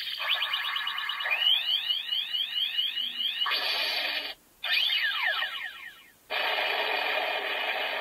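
Electronic finisher sound effect from a CSM Kamen Rider 1 Typhoon henshin belt toy, played through its small speaker, thin and without bass. It goes as a run of about ten quick rising chirps, then a burst of noise, a cascade of falling tones, and a sustained noisy buzz, with short breaks of silence between the parts.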